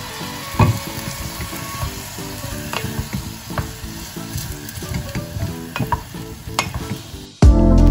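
Rice and salmon sizzling in broth in a small stainless-steel saucepan while a wooden spatula stirs them, with scattered clicks and scrapes of the spatula against the pan. Loud music cuts in abruptly near the end.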